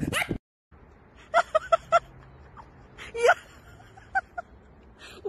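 Short, high-pitched vocal squeaks over faint background hiss: a quick run of four or five about a second and a half in, one longer rising squeak about three seconds in, then a few more short ones.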